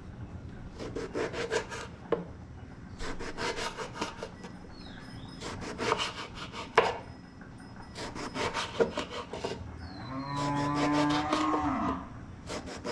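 Knife slicing a large brinjal (eggplant) into rounds on a chopping board, in short runs of quick strokes with pauses between. Near the end a long, low call of about two seconds sounds over the slicing.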